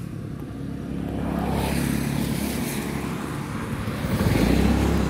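Engine of the vehicle carrying the camera running on the move, with a steady low hum under wind and road noise. The noise builds about a second in and grows louder again about four seconds in.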